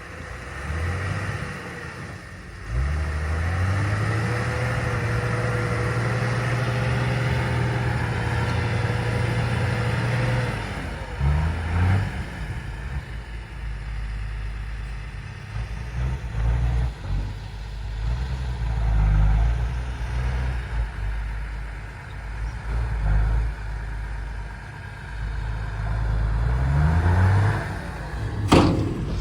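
Diesel engine of heavy digging machinery working. Its revs rise about three seconds in and hold steady, then rise and fall with changing load, with a sharp knock near the end.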